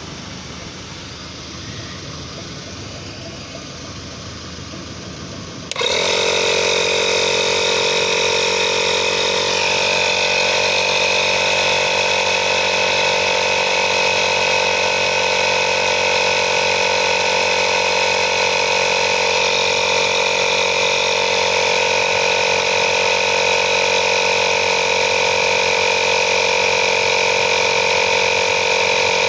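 INGCO digital portable tyre inflator switching on about six seconds in and running steadily, its motor-driven compressor pumping air into a car tyre with a constant whine over a low hum. Before it starts there is only a quieter steady hiss.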